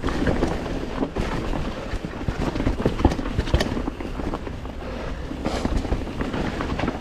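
Mountain bike being ridden on a dirt trail: wind rushing over the microphone with tyre noise and many sharp rattling knocks from the bike over the ground.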